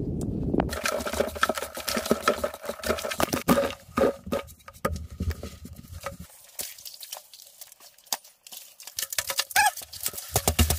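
Hand-digging in earth: a digging tool knocking and scraping in soil, making a run of irregular knocks and clicks that thins out for a few seconds after the middle, then picks up again.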